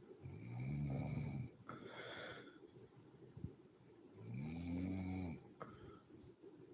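A woman snoring in her sleep: two long snores about four seconds apart, each a drone that rises and then falls in pitch, with a softer breath out between them.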